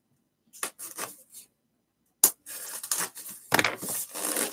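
Handling noise from opening a package: a few short scraping strokes of a blade cutting the tape around a cardboard box, a sharp click a little after two seconds, then continuous rubbing and scraping as the box and its styrofoam packing are pulled open.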